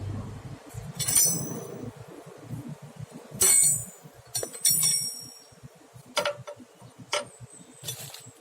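Metal tools clinking and knocking against metal parts during steering gearbox work: several sharp, ringing clinks, then a few duller knocks. A low rumble fades out in the first second.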